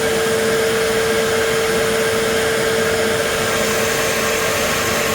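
Shop vac motor running steadily with a constant whine over a broad rushing hiss, pulling a vacuum on a sealed jar to suck the old oil out of a small engine through vinyl tubing.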